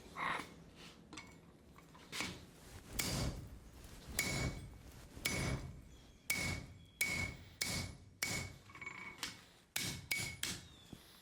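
A 4-pound rounding hammer strikes hot 5160 spring steel on the anvil, drawing the bar out. About a dozen blows land roughly a second apart and come quicker near the end, each with a short metallic ring.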